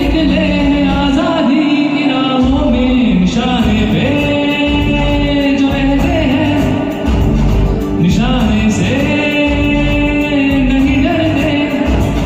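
A singer performing a Hindi patriotic song over instrumental backing music, holding long notes and gliding between them.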